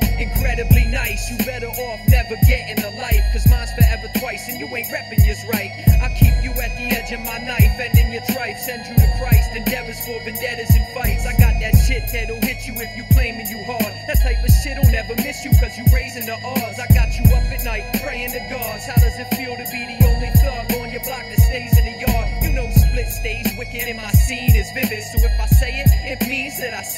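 Hip-hop track: rapped vocals over a beat with a heavy bass drum.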